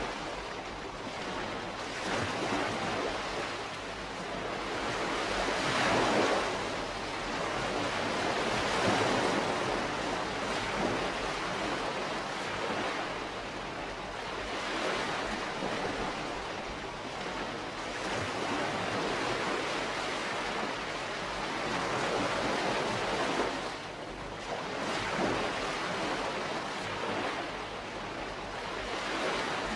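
Calm sea washing on a shore: small waves break and wash in, swelling and ebbing every few seconds in a continuous hiss.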